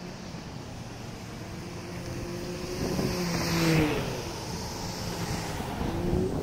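A car drives past on the street, growing louder to a peak just past the middle, its engine tone dropping in pitch as it goes by. Another vehicle approaches near the end.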